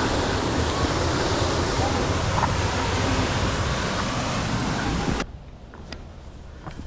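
Steady rushing noise of a nearby waterfall, which cuts off suddenly about five seconds in, leaving a much quieter background with a few faint clicks.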